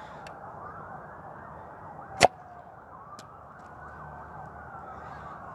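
Toy rocket launcher firing with one sharp snap about two seconds in. Faint rising-and-falling wailing tones run underneath.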